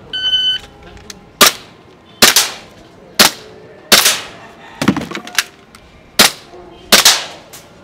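An electronic shot timer gives one short start beep, then a handgun fires about eight shots at an uneven, deliberate pace, each a sharp crack trailing off briefly.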